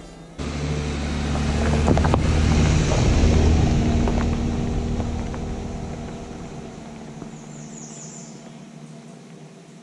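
Jeep Wrangler Rubicon's V6 engine and tyres on a dirt road as it drives past and away. The low engine sound swells to its loudest about three seconds in as the Jeep passes close, then fades steadily as it moves off.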